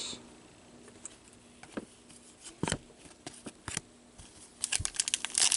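Hockey trading cards being handled, with a few scattered light clicks and taps, then near the end a foil card-pack wrapper crinkling and tearing as it is opened.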